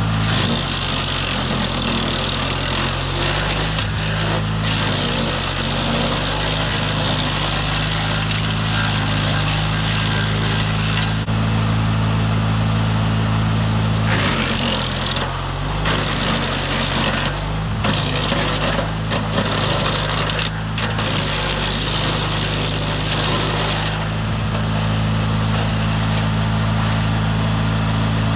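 DR wood chipper's gas engine running steadily while brush is fed through and chipped. A harsh grinding hiss of chipping swells and drops several times over the engine's steady drone.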